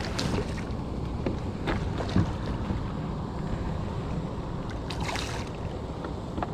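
Wind on the microphone and water moving around a kayak, with a few short knocks and splashes.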